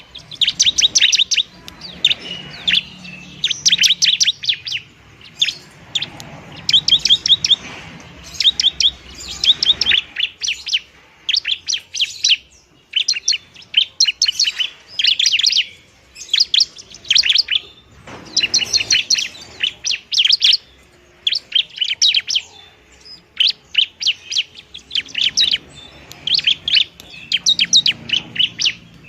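Bar-winged prinia (ciblek) singing in repeated bursts of fast, sharp, high chirping trills, each about a second long with short gaps between. This is its fighting song, the kind played to lure birds and to provoke a caged bird that is slow to sing.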